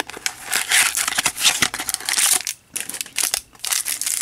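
Plastic shrink-wrap crinkling and tearing as a small cardboard trading-card box is opened by hand, then a foil card pack crinkling. The crackling comes in runs with short breaks.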